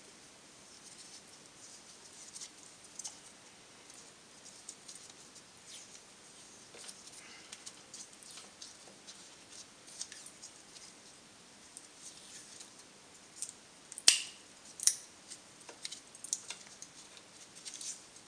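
Blue insulating tape being stretched and wrapped around a pack of battery cells, with irregular crackling of the tape and handling and a few sharper snaps about fourteen and fifteen seconds in.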